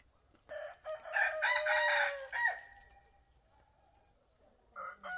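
Rooster crowing twice: one crow starting about half a second in and lasting about two seconds, held and then falling off at the end, and a second crow starting near the end.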